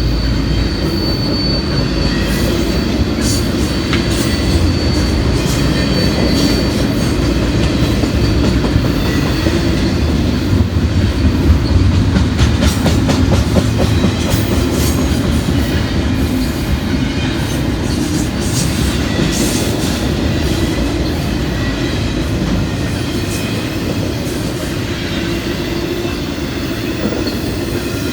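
Intermodal freight train cars rolling past with a steady rumble of steel wheels on rail. A faint high wheel squeal sounds in the first few seconds, and clusters of clicks come as wheel sets cross rail joints, most of them about halfway through.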